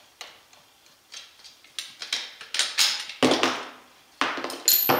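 Small metallic clicks and clunks of parts and tools being handled on a 1/5-scale RC monster truck's chassis during disassembly, a few scattered at first, then coming faster and louder, with a short metallic ring near the end.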